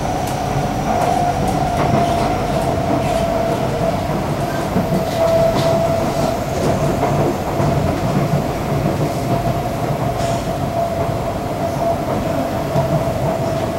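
A Kawasaki-CSR Sifang C151B electric train running steadily, heard from inside the passenger car: a continuous low running rumble with a steady whine held at one pitch, and a few faint clicks from the wheels.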